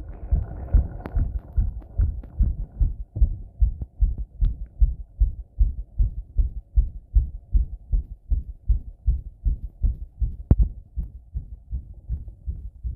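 Human heartbeat picked up by a microphone pressed against the chest after a bath: a steady run of low, dull lub-dub thumps, with a faint rubbing noise at the start.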